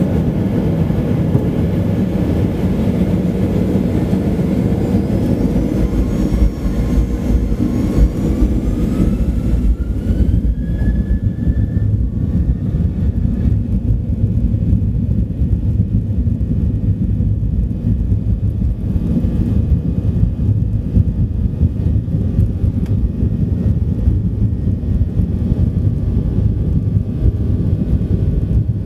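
Boeing 737-800's CFM56 jet engines heard from inside the cabin, spooling up to takeoff power with a rising whine over the first ten seconds or so, then the steady loud rumble of the takeoff roll down the runway.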